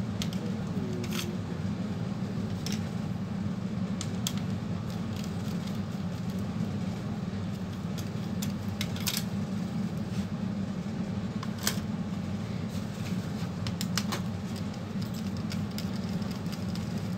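Light scattered clicks and taps as hands handle an opened laptop's motherboard and plastic and metal chassis, over a steady low hum.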